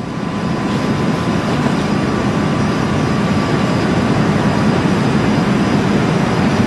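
Steady, loud mechanical roar with a low hum, the fan-like background noise of a commercial kitchen. It swells in over the first second, then holds level, and no knife strokes stand out above it.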